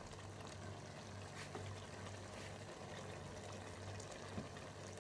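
Pork igado stew simmering in a pot on a gas stove: a faint bubbling and hiss of the sauce with small scattered ticks, over a steady low hum.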